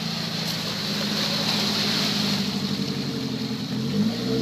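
Small 4x4's engine running steadily under load with a rushing hiss that swells about two seconds in; the revs begin to climb near the end.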